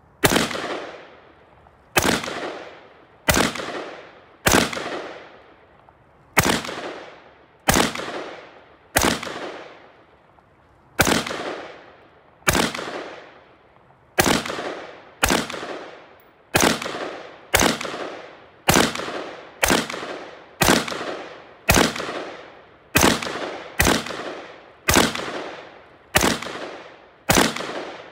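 AR-15 semi-automatic rifle firing single shots, about two dozen, each one trailing off in an echo. The shots come every second and a half or so at first, then quicken to less than a second apart about halfway through.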